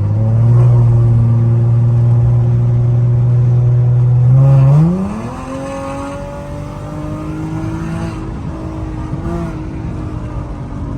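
Infiniti G37's 3.7-litre VQ V6, run through aftermarket test pipes, pulling at a steady loud drone. About four and a half seconds in, the revs climb sharply and then hold higher, still rising slowly.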